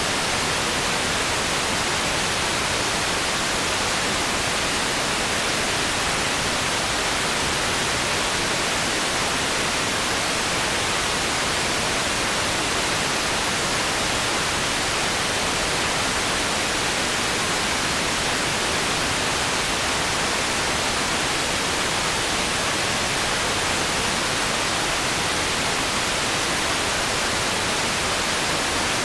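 Steady, loud hiss of static noise, even and unchanging, with no other sound in it.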